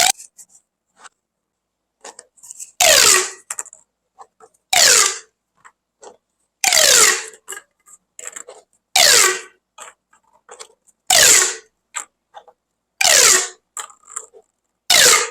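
Corrugated plastic pop pipe being worked in strokes about every two seconds. Each stroke is a short, rushing note that falls in pitch, with small crackling clicks from the ridged tube in between.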